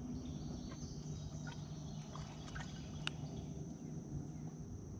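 Steady high-pitched insect chorus from the riverbank trees, with a few sharp clicks and taps from trotline gear being handled in a plastic kayak, the loudest about three seconds in.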